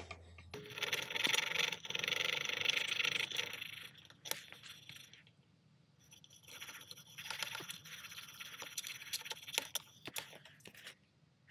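Luban No 4 plane blade in a roller honing guide being stroked back and forth on abrasive paper laid on glass: a gritty scraping in two long spells with short clicks between strokes. Finger pressure on one corner at a time is putting a camber on the edge.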